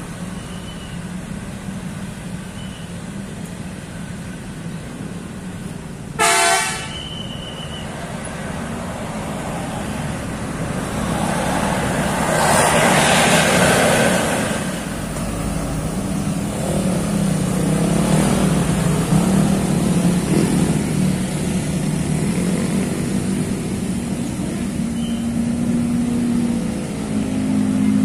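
Road traffic on a hairpin bend: engines of cars, motorcycles and buses running past in a steady drone, with one short vehicle-horn toot about six seconds in. The traffic grows louder around the middle as a bus passes close and stays loud to the end.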